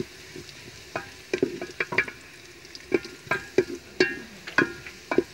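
A wooden spoon stirs onions frying in ghee in a metal pot. The spoon knocks and scrapes against the pot about ten times at an irregular pace, each knock ringing briefly, over a steady sizzle.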